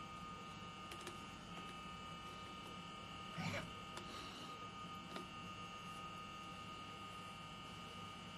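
Faint steady electrical hum and buzz, with one brief louder sound about three and a half seconds in.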